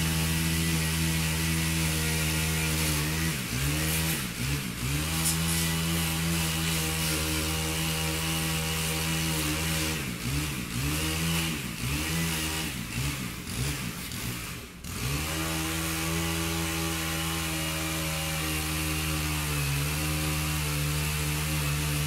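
Chainsaw running at speed, its pitch dropping and climbing back several times, a few seconds in and again around the middle, then running steady.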